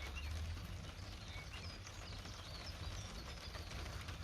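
Quiet outdoor background: scattered short bird chirps over a steady low rumble.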